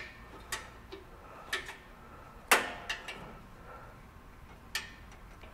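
About six light, scattered clicks and taps as screws are handled and started by hand into the end of a metal crossbar, the loudest about two and a half seconds in.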